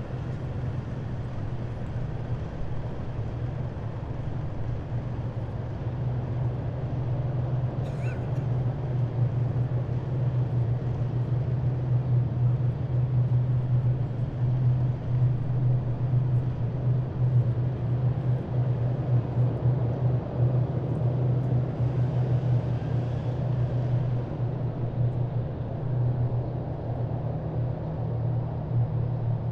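Heavy military vehicles driving past in a column: a continuous low engine sound over road noise, growing louder about ten seconds in as they come closer.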